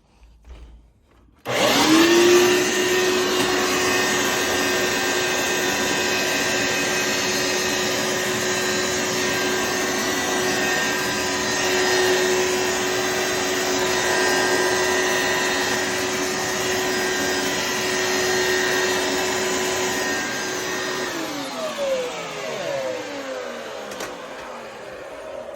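A 2000 Hoover SteamVac Widepath carpet cleaner switches on about a second and a half in, and its motor runs with a steady whine over loud suction noise. Near the end it is switched off and the motor winds down, its pitch falling away.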